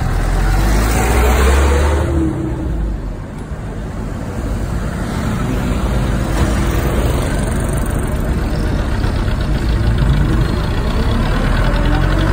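Riding in a moving mini bus with the window open: engine running and road and traffic noise, with heavy low rumble from the wind at the window. The engine note climbs in the first couple of seconds, then eases off.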